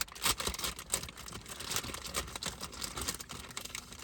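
Plastic wrapping crinkling and rustling, with irregular small clicks.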